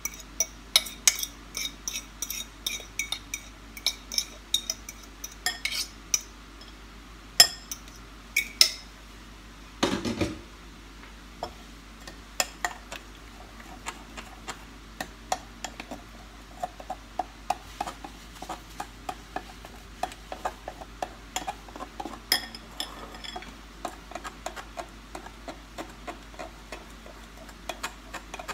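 A utensil clicking and scraping against a glass mixing bowl as mashed banana is stirred into flour batter. There are a few louder knocks in the first ten seconds, then quick, even strokes of about two or three clicks a second.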